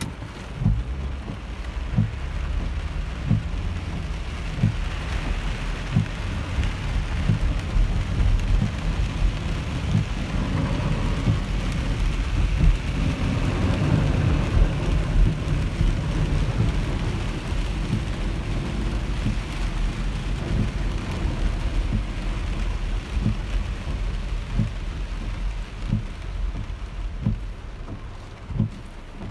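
Rain falling steadily, with a deep low rumble and scattered dull thumps throughout. The sound swells and grows fuller in the middle, then eases off toward the end.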